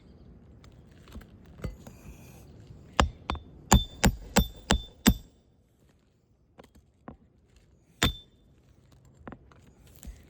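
Hammer driving a nail into roof shingles: a quick run of about seven ringing metal blows, about three a second, then one more blow a few seconds later.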